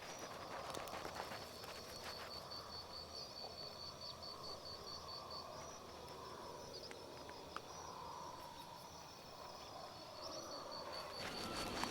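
Outdoor ambience: a soft steady hiss with a high, rapidly pulsing chirp, like an insect's, and scattered faint ticks.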